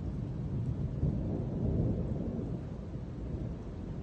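Rolling thunder rumbling low, swelling about a second in and easing off toward the end.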